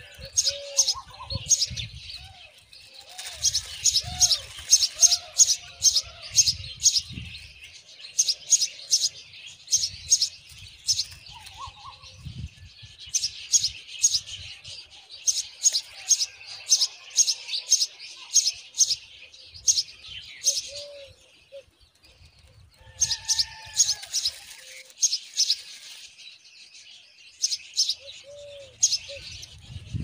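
Common myna nestlings begging for food as they are fed: bouts of rapid, high-pitched cheeping, each lasting a few seconds with short pauses between. A few lower, slurred calls come in between the bouts.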